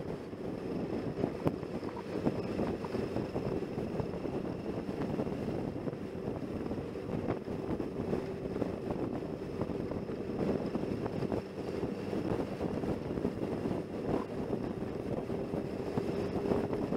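Motorcycle riding along at steady speed: the engine running under wind rushing across the microphone.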